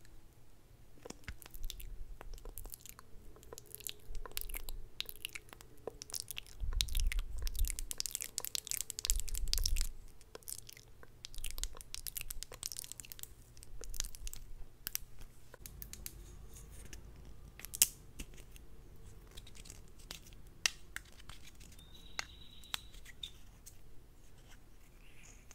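Close-up ASMR mouth sounds: wet lip smacks and clicks right at the microphone, coming thick and fast for a few seconds and then thinning out to scattered clicks.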